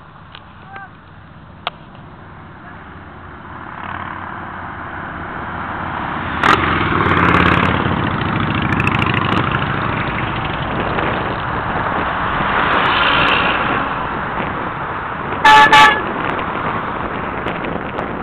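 A procession of motorcycles, including Harley-Davidsons, and cars passing close by, the engine noise building as they near and go by. Near the end a vehicle horn honks twice in quick succession.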